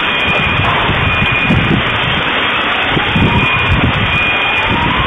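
Loud, distorted rumbling noise in the seconds right after a large vehicle-bomb explosion, overlaid with faint alarm beeps and a rising wailing tone that repeats about every two seconds.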